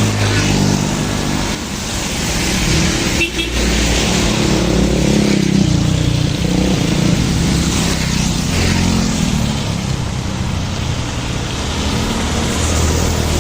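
Heavy rain falling steadily, with motor vehicle engines passing close by, their pitch rising and falling as they go.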